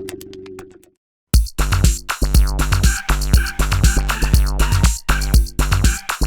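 M-Audio Venom virtual-analog synthesizer playing performance presets: a held tone with fast, even ticking fades out within the first second, and after a brief gap a new preset starts with a drum-machine beat, heavy kick and bass line under synth chords.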